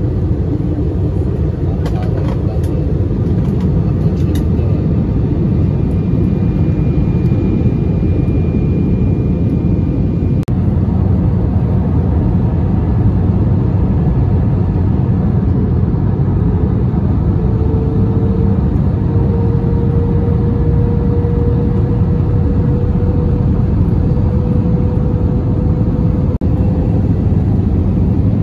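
Airbus A321 cabin noise on approach with flaps extended: a steady, dense low rumble of the engines and the airflow over the wing. A little past halfway a steady engine hum comes in and rises slightly in pitch.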